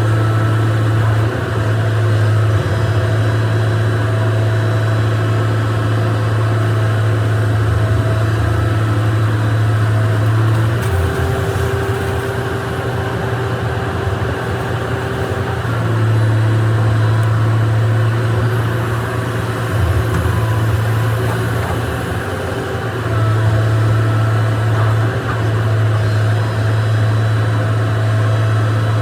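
Excavator's diesel engine running steadily with a deep hum. Its note weakens and a higher steady whine comes in for about five seconds near the middle, then the hum comes back.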